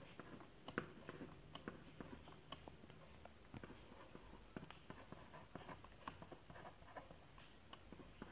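Faint scratching and irregular light taps of a pen writing on paper.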